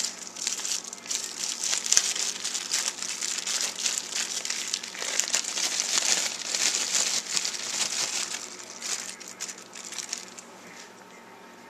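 Plastic package of little smokies cocktail sausages crinkling and rustling as it is opened and handled, with many small crackles, dying away near the end.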